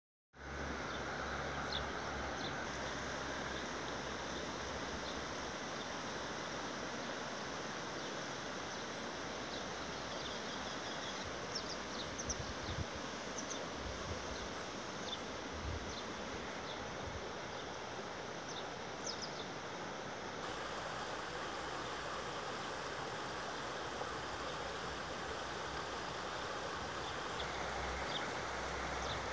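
Steady rush of flowing river water, with scattered short bird chirps through the middle of the stretch.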